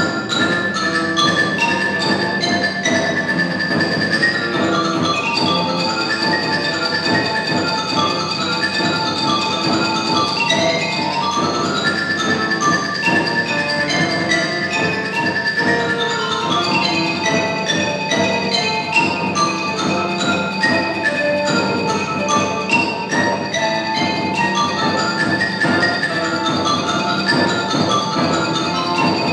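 Marimba played with mallets in a dense, unbroken run of notes, accompanied by grand piano.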